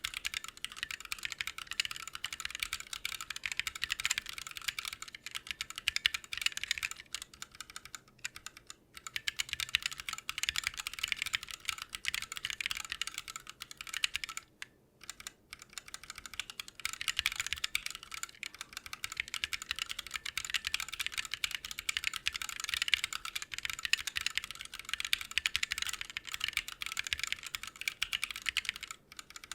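Fast, continuous typing on a Lily58 Pro split mechanical keyboard with Blue Bubblegum switches: dense runs of key clicks, with short pauses about eight and fifteen seconds in.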